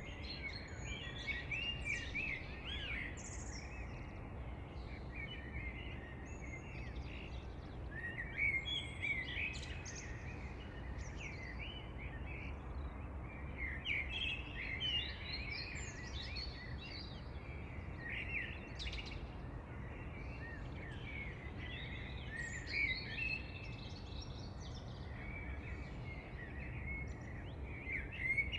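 Songbirds singing: short phrases of quick chirping notes every few seconds, over a steady low rumble.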